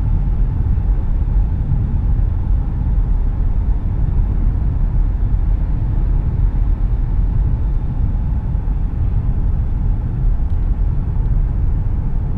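Steady low rumble of road, tyre and engine noise inside the cabin of a 2017 Buick LaCrosse cruising along a road.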